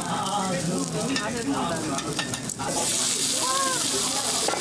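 Makchang (intestines) and onions sizzling on a round tabletop grill, the sizzle getting louder and hissier a little past halfway through.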